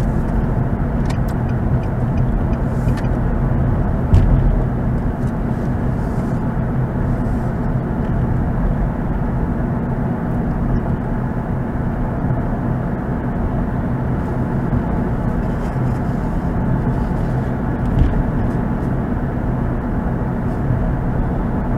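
Steady road and engine noise inside a moving car's cabin: tyre rumble over a low, even hum. There are a couple of light knocks, one about four seconds in and one near the end.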